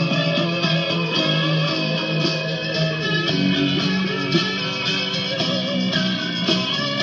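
A guitar-led instrumental passage from a 45 rpm record, played on a 1955 RCA Victrola 6-EY-3B record player.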